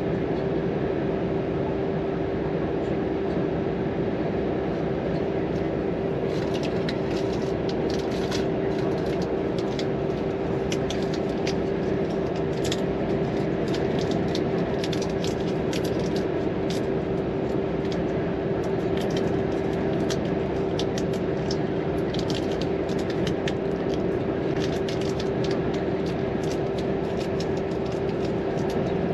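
Volvo FM 420 hp truck with a loaded car-transporter trailer driving at a steady pace: a constant engine and road drone with a steady hum. From about six seconds in, frequent light ticks and rattles come over it.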